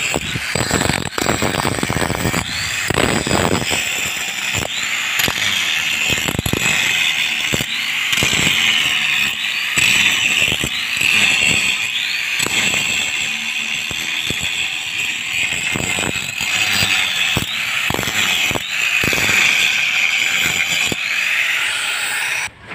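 Electric angle grinder grinding steel at the hub of a cement mixer's belt pulley, where the bearing has failed: a steady high whine with rough chatter as the disc bites. It cuts off abruptly near the end.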